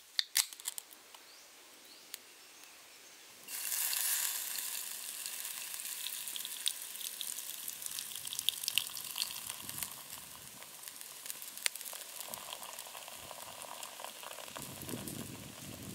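A beer can's pull tab snapping open with a couple of small clicks. About three and a half seconds later beer starts pouring into an earthenware pot, its foam fizzing and crackling steadily, and near the end the stream splashes more heavily.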